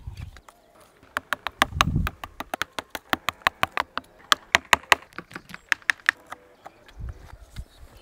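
Wooden mallet striking a carving chisel into the wood of a sculpture: a quick run of sharp taps, several a second, with low handling knocks around them.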